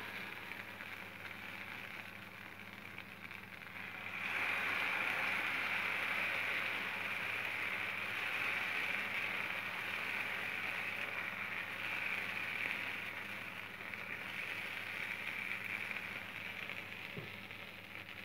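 Dosa batter sizzling on a hot oiled pan, getting louder about four seconds in.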